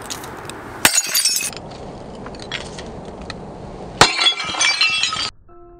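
A 6-lb sledgehammer smashing a ceramic bowl, twice: once about a second in and again about four seconds in. Each blow is a sharp crack followed by a shower of clinking, scattering shards. Piano music starts near the end.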